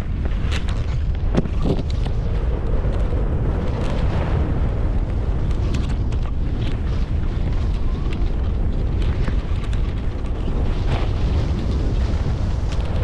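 Wind buffeting the microphone of a skier's camera during a downhill run: a steady, heavy rumble, with the hiss and short scrapes of skis carving across groomed snow.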